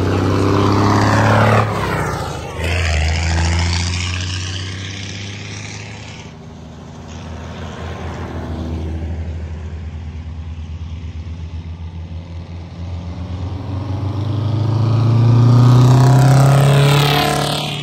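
Antique Brockway tractor trucks driving past one after another, the engine noise swelling and fading as each one passes. The loudest pass is near the end.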